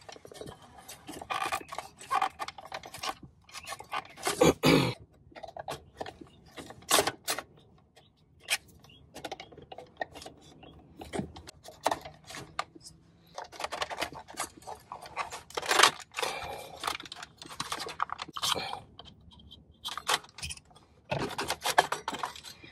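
Plastic clicking, scraping and creaking as a screwdriver and a plastic pry tool work the trim bezel's clips loose from the stock 2008 Toyota Tacoma head unit's metal chassis. The sounds come in irregular bursts, with a few sharper clicks standing out.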